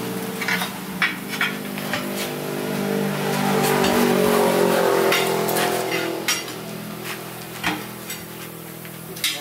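Steel tire irons clanking and scraping against a truck wheel's steel rim as the tire is pried over it, several sharp metal knocks, over an engine running whose pitch and loudness rise midway and fade out after about six seconds.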